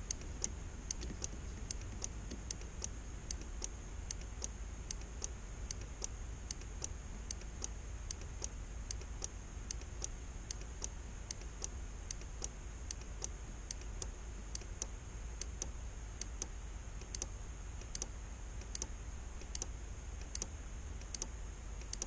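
Small 12 V NE555 delay-timer relay modules clicking on and off in time with the car's hazard flashers, an even run of sharp clicks, several a second. The two sides' relays are being tuned to click together: clicking at the same moment means the two sides' sequential turn signals are in sync.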